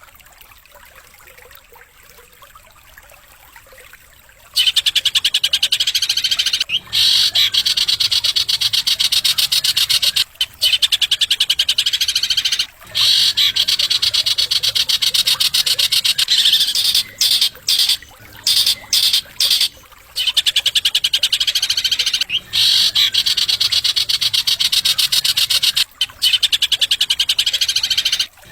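A songbird's very fast, buzzy trill, sung in long runs broken by short pauses. It starts about four seconds in after a faint opening.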